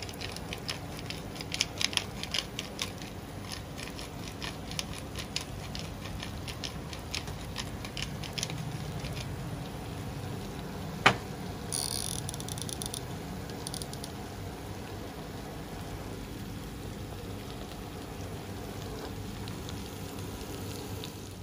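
Lemon-garlic butter sauce sizzling and bubbling in a pan, with many small crackling pops through the first half. About eleven seconds in there is one sharp click, then a pepper mill grinds briefly over the pan.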